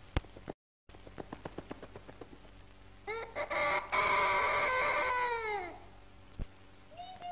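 A rooster-like crowing call, held for about two and a half seconds with its pitch dropping away at the end. It comes after a run of quick clicks, about five a second.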